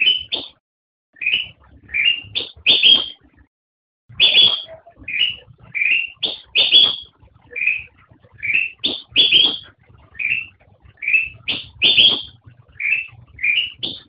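Kutilang emas (Pycnonotus melanicterus, a bulbul) singing: a steady series of short, clear notes, repeated about once or twice a second, with one brief pause about three and a half seconds in.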